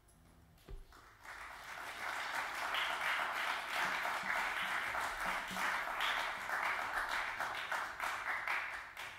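Audience applauding, a dense patter of many hands that starts about a second in and stops sharply near the end. Just before it, a single low thump.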